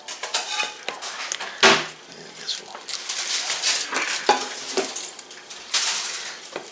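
A large knife carving a whole smoked chicken on a wooden cutting board: irregular crackling and scraping as the blade cuts through the crisp skin and meat. A single sharp knock about a second and a half in is the loudest sound.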